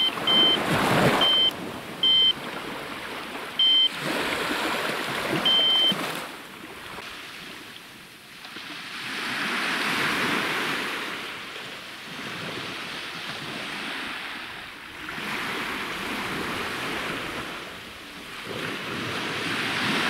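Small sea waves washing onto a sandy beach, swelling and fading in slow surges. In the first six seconds an electronic fishing bite alarm gives about five short, high beeps, the sign of the line being tugged.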